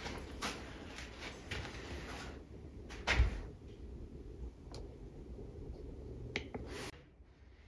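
Footsteps and handling knocks around an old machine: scattered light clicks and taps, with one heavier thump about three seconds in.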